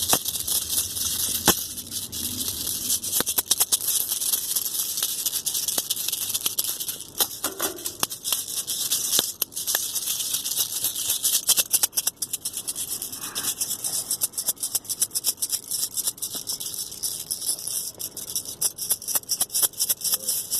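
A rattle shaken fast and without a break: a high, hissing rattle made of dense rapid clicks. It turns choppier, with short gaps, in the second half.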